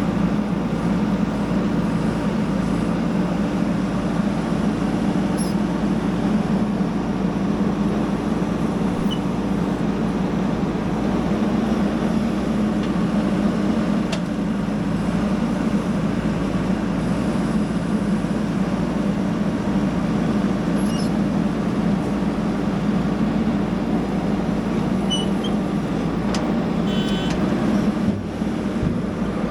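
Heavy diesel engine of earthmoving machinery running steadily, with a constant low hum.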